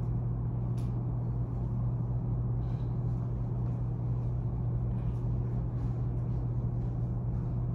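Steady low hum of room noise, with a few faint short ticks.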